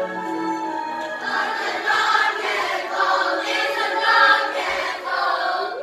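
Children's voices singing together in a musical number, with held notes; the singing grows fuller about a second in.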